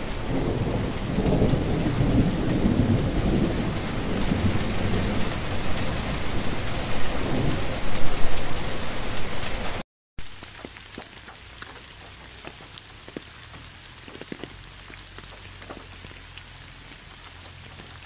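Heavy rain pouring, with low thunder rumbling underneath, loudest about eight seconds in. After a brief break about ten seconds in, lighter, quieter rain with separate drops striking.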